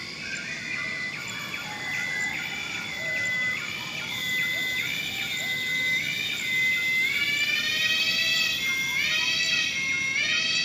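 Loud, repeating siren-like insect call: a steady whistling tone that steps briefly up in pitch about once a second. In the second half it is joined by overlapping rising notes that grow louder.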